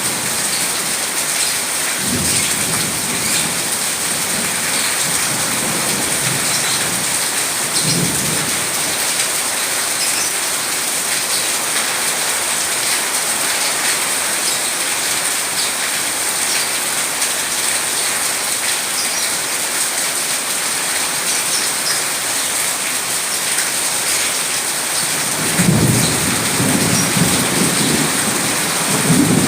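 Steady heavy rain with rolling thunder: brief low rumbles about two and eight seconds in, and a louder, longer roll of thunder near the end.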